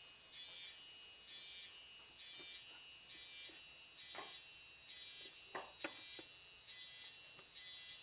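Insects calling in regular buzzy pulses, about one a second, over a steady high whine. A few sharp knocks come in the middle, the loudest about six seconds in.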